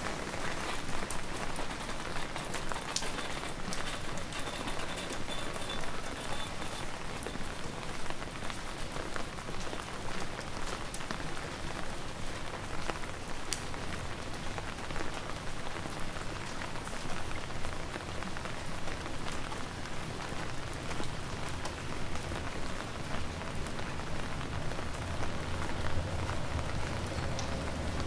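Steady rain falling, a constant hiss dotted with many small drop ticks. A low rumble builds in the second half and is strongest near the end.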